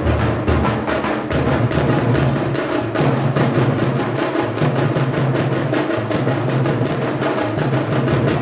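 Loud percussion-heavy music with a fast, steady drum beat.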